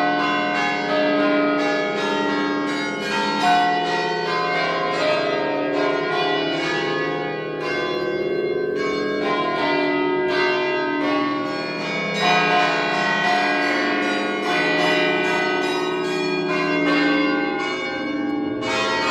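Church bells ringing a continuous peal, many struck notes overlapping and ringing on into one another.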